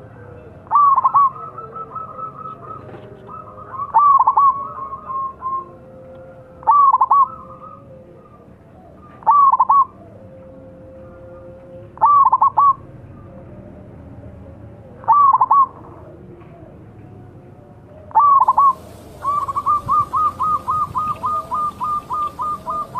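Zebra dove (perkutut) cooing: a short, bright coo phrase repeated about every three seconds, sometimes followed by softer notes. Near the end it breaks into a fast run of about fifteen short coo notes, roughly four a second.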